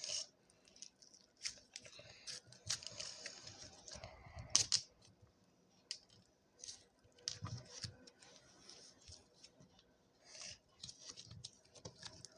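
Sticky clay slime being stirred, with faint irregular squelchy crackles and clicks and one louder click about four and a half seconds in.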